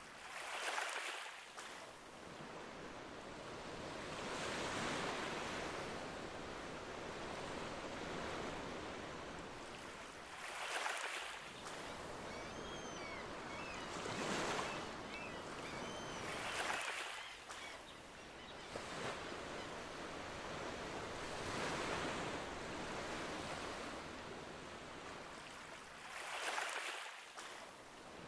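Ocean waves lapping on a shore, the surf swelling and falling back every few seconds. A few faint high chirps come about halfway through.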